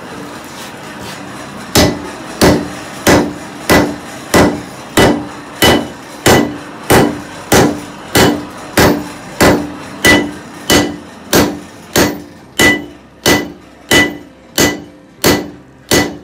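Blacksmith's hand hammer striking a red-hot steel bar held in tongs on an anvil, flattening it. The blows begin about two seconds in and keep a steady rhythm of about three every two seconds, each with a short metallic ring.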